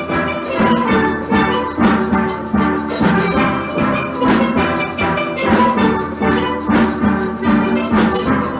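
Steel pan band playing a lively tune, many quick struck notes over a steady drum beat.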